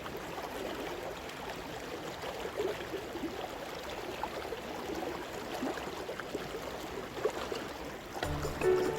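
River water running and gurgling steadily over rocks at a small inflow. Music comes in near the end.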